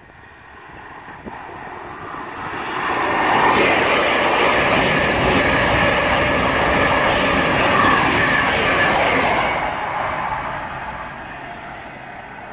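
Electric multiple-unit passenger train running past on the rails. The noise grows to a peak about three seconds in, holds for some six seconds as the carriages go by, then fades as the train moves off.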